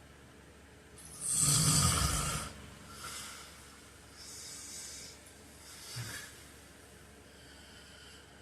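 A man snoring in his sleep: one loud snore about a second in, lasting about a second and a half, followed by three quieter, shorter breaths.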